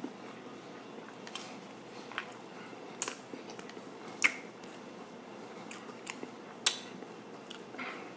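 A person chewing a custard-filled chocolate éclair with the mouth close to the microphone: soft wet chewing broken by scattered sharp mouth smacks and clicks, about eight of them at uneven intervals.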